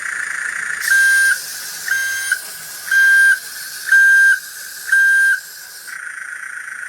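Five evenly spaced electronic beeps, about one a second, over a steady high whine and hiss.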